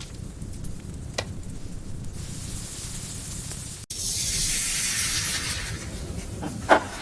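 Soft steady hiss with a few light ticks, then after a cut about four seconds in, a louder high sizzle of food cooking in a pot over the fire. A short sharp sound comes near the end.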